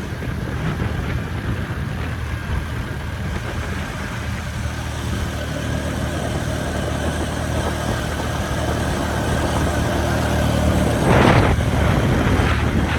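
Motorcycle engine running steadily, heard from on the bike, with road and wind noise. A brief louder surge comes about eleven seconds in.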